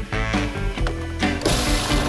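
Background music, then about a second and a half in a Magimix food processor starts up and runs steadily, its blade churning salt and egg whites into a thick salt-crust slurry.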